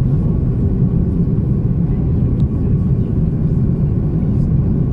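Steady low rumble of a passenger jet in flight, heard from inside the cabin.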